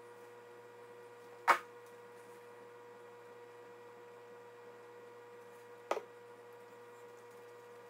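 A steady electrical hum, with one sharp, loud click about a second and a half in and a fainter click near the end.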